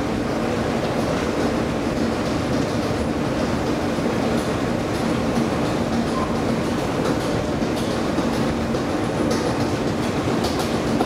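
Escalator running while being ridden downward: a steady mechanical hum with a few light clicks near the end.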